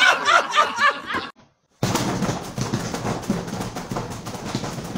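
A young boy shouting excitedly and adults laughing, cut off about a second in. After a short gap comes laughter mixed with a fast run of quick knocks.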